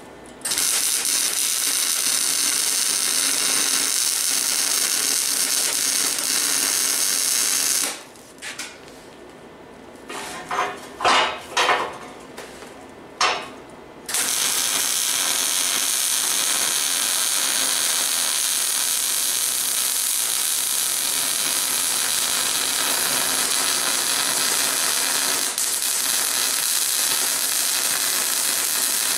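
MIG welder's arc running steadily on steel rebar, in two long welds. Between them, about eight seconds in, the arc stops for some six seconds, with a few sharp knocks of metal on the steel table.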